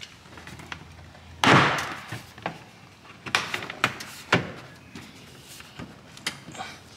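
Plastic aftermarket rear diffuser being pushed by hand into the rear bumper of an SRT Redeye Widebody. There is a loud thunk about a second and a half in, then a few sharp snaps roughly half a second apart as its clips pop into the bumper, the popping that shows the piece is seated all the way in.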